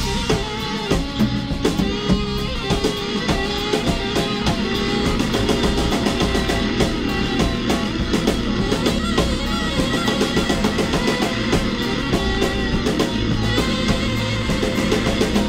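Free-jazz band recording, with electric guitar, bass and drum kit improvising together in a dense, loud, continuous passage full of quick drum hits.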